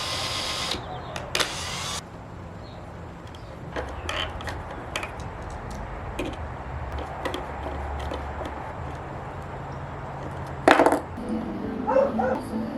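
Scattered clicks and clinks, typical of small metal brackets and screws being handled, broken by short loud bursts of noise at the start, about a second later, and near the end. Background music comes in near the end.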